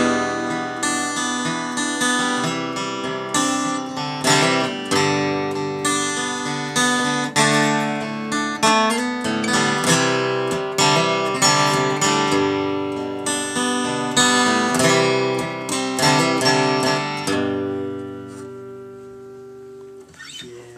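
Acoustic guitar strumming the closing instrumental bars of a song, chord after chord. Near the end a final chord is left to ring and fades away.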